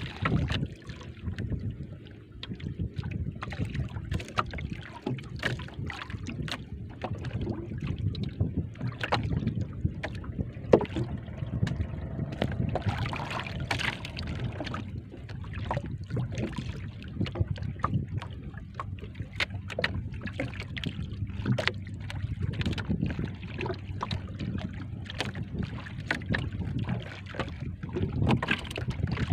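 Water lapping and slapping against a small boat's hull at sea, with many short knocks and slaps over a steady low wind rumble on the microphone.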